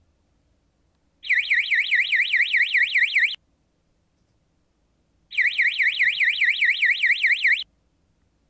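Electronic alarm sounder of a signal indicator giving a high-pitched, rapid warble, about eight swings a second, in two bursts of about two seconds each with a pause between. It is the acoustic alarm set off by the thermal camera's temperature alarm output.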